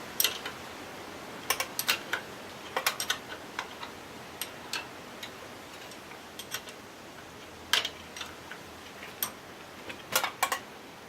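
Sharp metal clicks and clinks, single and in small clusters at irregular intervals, from a wrench working loose the bolt on the fork brace of a 1968 BSA A65 motorcycle.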